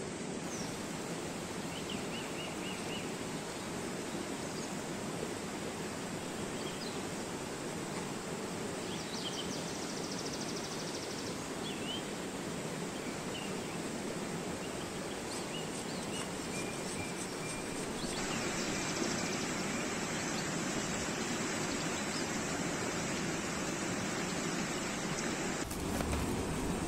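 Steady rush of a rocky stream, with birds chirping and trilling over it now and then.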